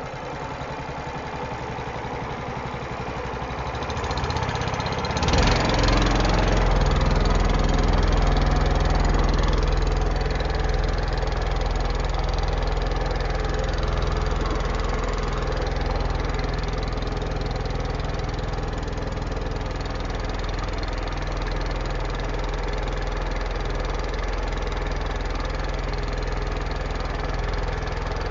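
Small air-cooled boat engine running, first at a low, beating idle. It is opened up about five seconds in and then runs steadily and louder as the boat gets under way.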